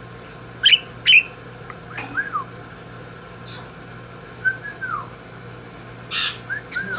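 Pet starling calling and whistling: two sharp high calls about a second in, then a few short falling whistles spread through, and near the end a brief noisy burst followed by quick whistles.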